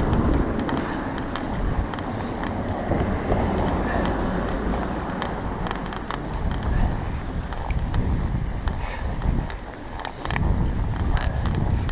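A bicycle ridden through fresh snow, with a continuous low rumble of wind buffeting the action-camera microphone and scattered small clicks.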